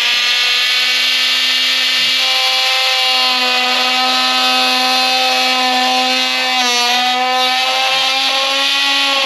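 Oscillating multi-tool running at a steady pitch as its blade cuts into a baseboard at a wall corner. The pitch dips briefly about seven seconds in, then recovers.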